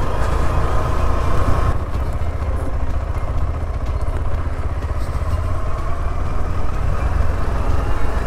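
KTM 390 Adventure single-cylinder motorcycle engine running while descending a steep road on engine braking, with a steady deep rumble. A high whine drops away about two seconds in.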